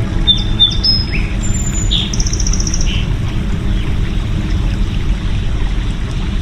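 Small birds chirping, with short calls and a quick trill in the first few seconds, over a steady low rushing noise.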